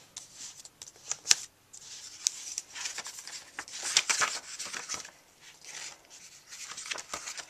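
Pages of a hardcover book being opened and turned by hand: paper rustling and swishing in irregular strokes, with sharp flicks and taps, the loudest a snap about a second in.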